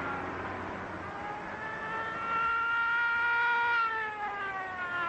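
Police car siren wailing during a car chase: its pitch rises over the first two seconds, holds, falls near the end and starts to rise again. It sounds over the noise of car engines, which fades in the first second.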